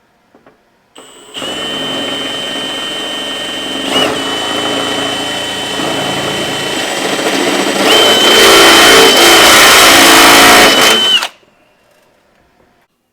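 Milwaukee M18 Fuel 1/2-inch hammer drill driver (2904-20) running in plain drill mode, with a steady high motor whine. It drills for about ten seconds, getting louder and harsher about eight seconds in as the bit bites, then stops suddenly.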